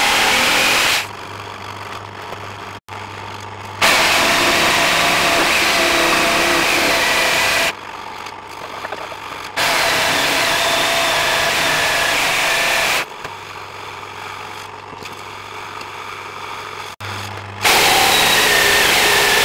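Electric jigsaw cutting through a thick block of timber, its motor whining steadily over the noise of the blade. It comes in four cuts of a few seconds each, broken abruptly by quieter stretches that hold only a low steady hum.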